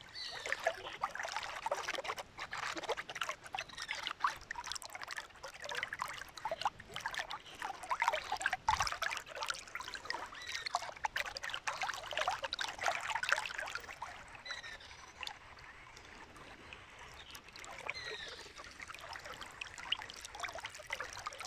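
River water gurgling and lapping close to the microphone, a dense run of small splashes and trickles that eases off about two-thirds of the way through.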